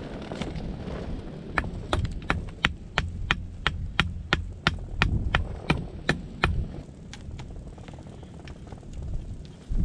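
Hand tool hammering at ground level: about fifteen sharp strikes, roughly three a second, that stop about two-thirds of the way through.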